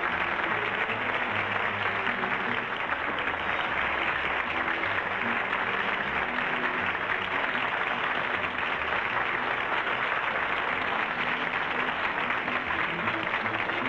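Studio audience applauding steadily over the programme's closing theme music.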